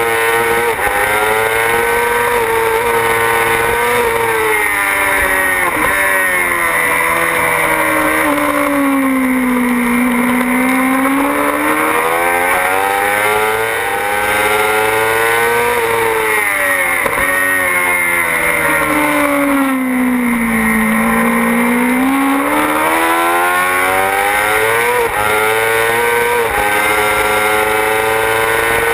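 Yamaha R6 sport bike's inline-four engine heard on board at racing revs. Its pitch falls twice as it brakes and downshifts for corners, then climbs back in steps as it accelerates through the gears.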